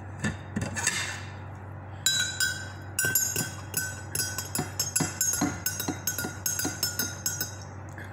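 A metal spoon stirring coffee in a glass mug, clinking quickly and repeatedly against the glass with a ringing note. It starts about two seconds in and lasts about five seconds.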